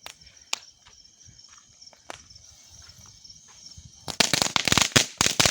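Firecrackers: a few isolated sharp pops, then about four seconds in a rapid string of cracks going off loudly one after another.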